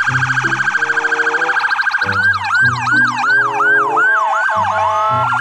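Emergency vehicle sirens: a fast warble for about two seconds, then a yelp of repeated falling sweeps about two a second, turning into a slow rising wail near the end.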